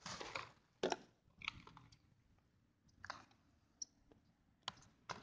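Cardboard makeup packaging and a palette being handled: a short faint rustle at the start, then scattered light clicks and taps, about one every second.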